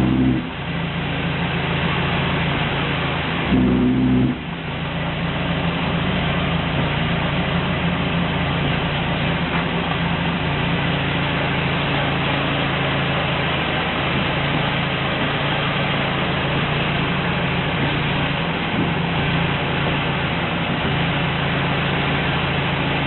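Car steering rack humming, the drone that is the fault being shown: a steady low hum over road and engine noise. It swells louder for under a second about three and a half seconds in.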